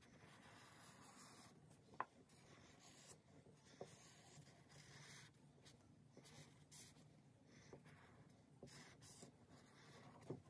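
Faint strokes of a felt-tip highlighter rubbing across paper, one after another, with a light tick about two seconds in and another near four.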